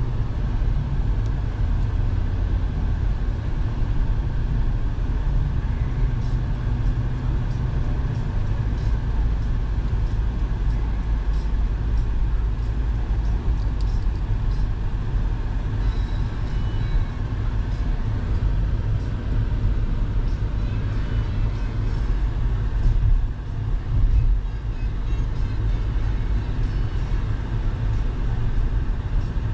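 A car driving up a mountain highway, heard from inside: a steady low rumble of engine and tyre noise, with the engine climbing under load. There is one brief louder jolt about three-quarters of the way through.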